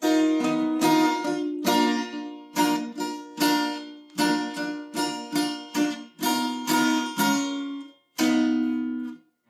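A plucked string instrument playing a slow solo melody, one note at a time, each note ringing and dying away. A short pause comes about eight seconds in, followed by one last longer note.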